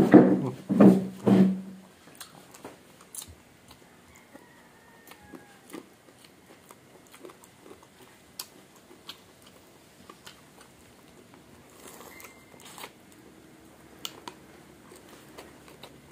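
Close-up chewing and crunching of fried pork and rice, heard as many small scattered crunches and mouth clicks. A few short voiced sounds come in the first two seconds.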